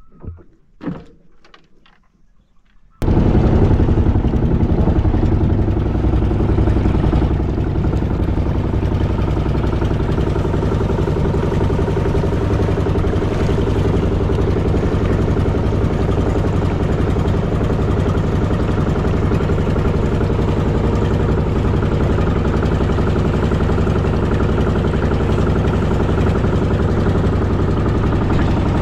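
After a few seconds of quiet, the engine of a small motor boat cuts in suddenly and runs steadily at an even pitch.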